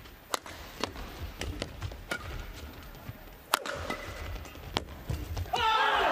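Badminton rally: sharp racket strikes on the shuttlecock every half-second to second, with a few shoe squeaks on the court. Near the end the rally is over and a shout and loud crowd noise break out.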